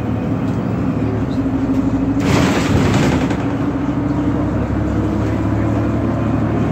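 A 2019 Nova Bus LFS CNG city bus running, heard from inside the cabin during a ride: a steady engine drone with a low hum. A little over two seconds in, a loud hissing rush lasts about a second.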